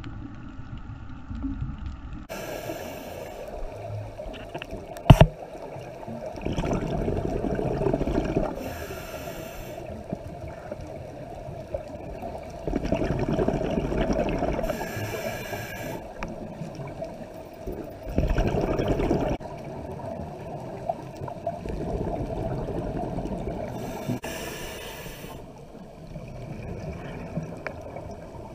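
Scuba regulator breathing underwater, about four breaths. Each is a short hissing inhale, followed a few seconds later by a longer, louder gurgle of exhaust bubbles. A single sharp knock comes about five seconds in.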